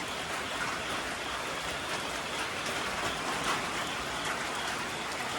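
Steady rain falling and pattering on surfaces, with scattered drips, from a hurricane rain band.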